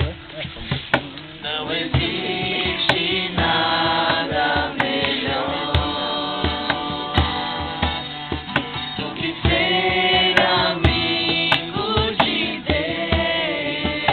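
Voices singing a Portuguese worship song to instrumental accompaniment, with a percussive beat about once a second.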